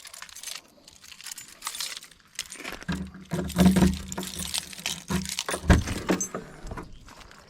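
A key ring jangling and clicking as a key is worked in the lock of a Bobcat E35 mini excavator's access panel, in many short clinks. A low steady hum joins for a few seconds in the middle.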